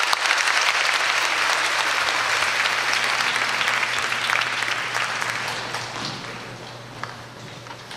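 Audience applauding loudly, breaking out at once and dying away over the last few seconds.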